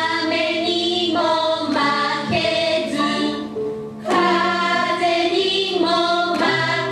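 A song from a musical number: several voices singing together over an instrumental accompaniment, with held notes over a steady bass line.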